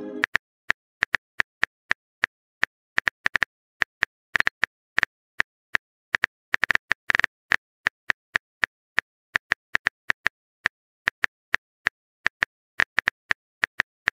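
Phone keyboard typing sound effect: short, crisp tap clicks at an irregular pace, several a second, with brief gaps between bursts.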